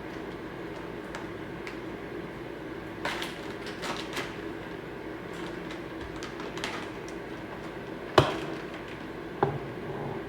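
Kitchen handling sounds: scattered taps and knocks of utensils, packaging and dishes while fish is prepared, with one sharp knock about eight seconds in, over a steady low hum.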